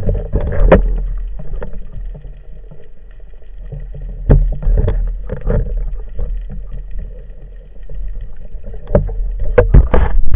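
Irregular dull knocks and bumps from a speargun and underwater camera being handled in the water, over a low sloshing rumble, as a speared green wrasse is worked on the shaft. The knocks come more often and louder near the end.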